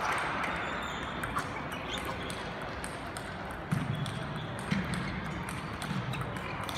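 Table tennis ball clicking off bats and table in a rally that begins a little past halfway, over the hall's background of faint ball ticks from other tables.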